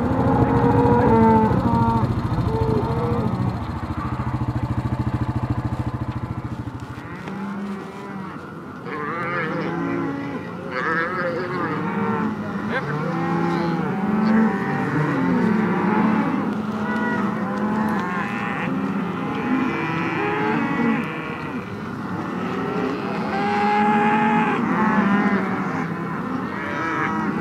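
A herd of cattle, cows and calves, bawling, with many calls overlapping one another. A steady low hum lies under the calls for the first seven seconds or so, then stops.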